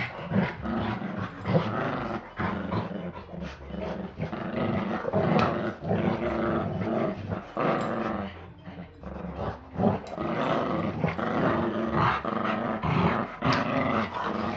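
Two dogs, a large dog and a Chihuahua, play-fighting, with steady play growling. Short sharp knocks and scuffles come throughout as they wrestle.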